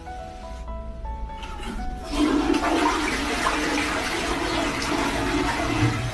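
A steady rush of water that starts about two seconds in and keeps going.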